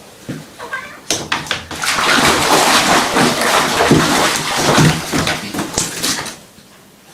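Water splashing and sloshing in a bath: a loud rush of noise broken by many short splashes starts about a second in and cuts off about a second before the end.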